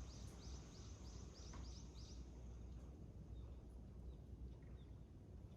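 Sparrows chirping faintly: a quick run of short high chirps, about four a second, over the first two seconds, then a few scattered chirps, over a steady low rumble of outdoor background noise.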